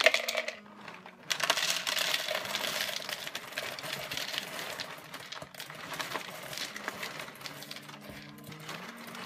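Dry Rice Chex cereal poured from its box into a measuring cup: a dense rattle of small pieces. It starts with a brief burst, swells about a second in, then slowly thins.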